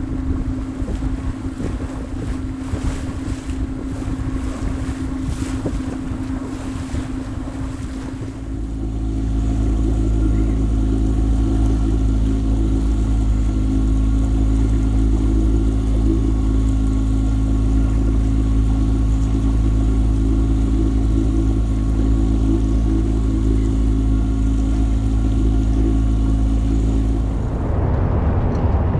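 Wind buffeting the microphone over choppy water, with a faint engine hum beneath. About eight seconds in the sound changes to the sailboat's engine running at a steady, even pace, a deep hum with a higher drone over it; near the end wind and water noise return.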